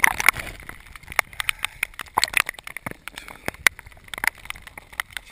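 Water splashing and sloshing at the surface as a large speared pike is handled up close, with many sharp knocks and clicks throughout and louder splashes at the start and about two seconds in.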